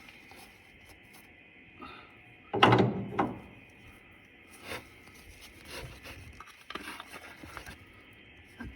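Mechanical fuel pump being worked into place against a Mopar 440 engine block: a loud metal scrape and clunk about three seconds in, then a few fainter knocks and rubs as it is positioned.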